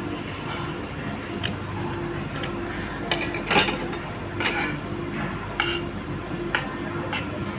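Cutlery clinking against dishes during a meal: a handful of short, sharp clinks spread through, the loudest about three and a half seconds in, over steady background noise.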